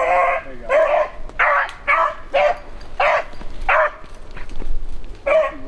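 Beagles baying in short, howling barks, about eight in quick succession with a short pause near the end: hounds giving voice while running a cottontail rabbit's trail.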